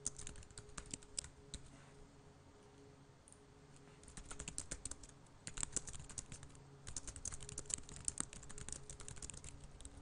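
Typing on a computer keyboard: quick runs of key clicks, a pause of about two seconds early on, then steady typing again. A faint low hum runs underneath.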